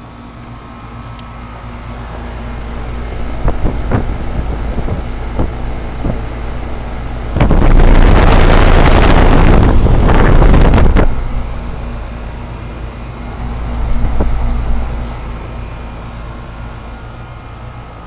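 A 2004 Goodman 3.5-ton heat pump condensing unit running in cooling mode, with its compressor and fan giving a steady low hum. The fan's discharge air buffets the microphone, building over the first few seconds and loudest for about three and a half seconds midway through, then easing off.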